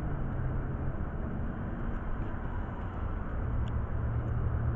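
Steady low rumble of road traffic, with a low engine hum growing stronger about three and a half seconds in.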